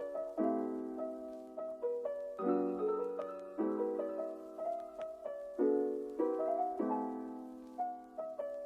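Background music: a soft solo piano playing gentle chords and a simple melody.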